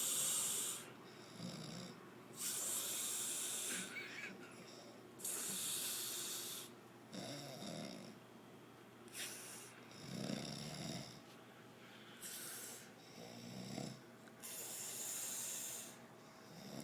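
Snoring: breath after breath every two to three seconds, some a hissing rush of air and others a low snore.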